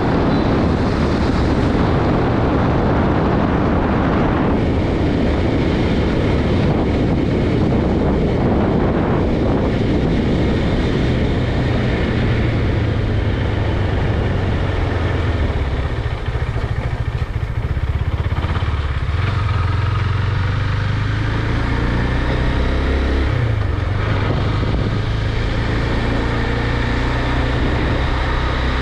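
KTM Duke 390's single-cylinder engine running under way, with heavy wind rush on the microphone for the first several seconds. Later the engine note comes through more clearly, and its pitch steps up and down a few times.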